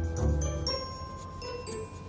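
Background music: ringing, bell-like notes held over a thinning bass, which fades out in the first half-second.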